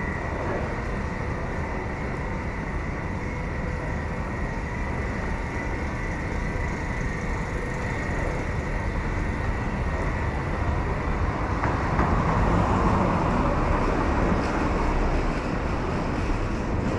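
Steady urban traffic noise, growing louder for a couple of seconds about twelve seconds in.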